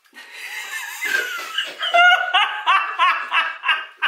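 Several people laughing hard, led by a high, rapid laugh that breaks into quick repeated bursts from about two seconds in.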